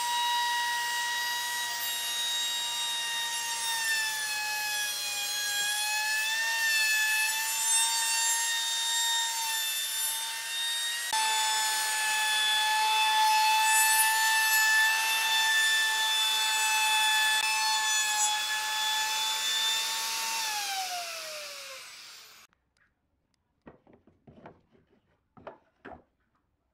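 Electric plunge router running at full speed with its bit cutting along the edge of a wooden door frame: a steady high whine with the rasp of cut wood. Near the end the motor is switched off and the whine falls as it spins down, followed by a few faint knocks.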